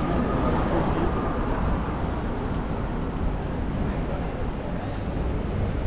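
Steady outdoor street ambience: a low traffic rumble with faint voices in the background.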